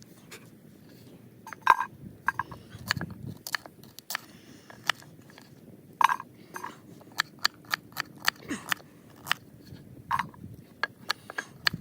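Knife cutting and peeling raw root vegetables: irregular crisp crunches and clicks, with a few louder clicks that ring briefly.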